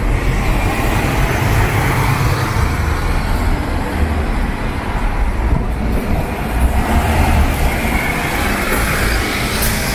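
City street traffic: cars passing in a steady wash of road noise with a heavy low rumble.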